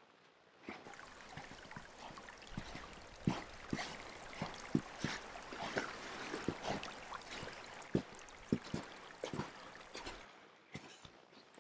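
A small mountain creek running and trickling, a steady rushing hiss with irregular gurgles and splashes. It starts abruptly just after the beginning and stops abruptly near the end.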